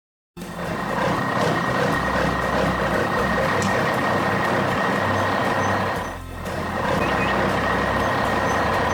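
Heavy vehicle engine sound effect, a steady dense mechanical noise with a high steady tone over it, the kind of truck-and-reversing-alarm sound used for a loader. It starts just after a brief gap and dips briefly about six seconds in.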